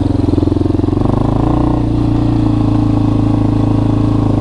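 Yamaha Warrior 350 ATV's air-cooled single-cylinder four-stroke engine running as the quad rolls along slowly; its note steps up slightly about a second in. It is running well on a freshly rebuilt carburetor.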